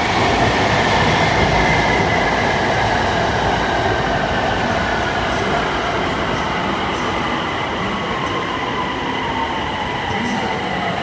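BTS Skytrain electric train running through the station, a loud rumble with a high steady whine and a second whine that slowly falls in pitch.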